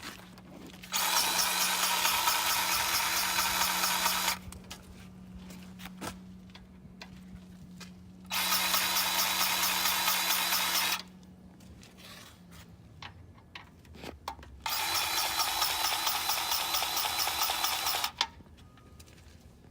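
Battery-powered grease gun motor running in three bursts of about three seconds each, pumping grease into the skid steer's grease fittings, with short pauses between bursts as the gun moves from fitting to fitting.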